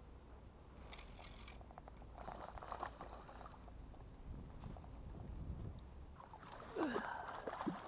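Hooked rainbow trout splashing at the surface of the water as it is played on a fly rod, with the loudest splashes in the last second or so.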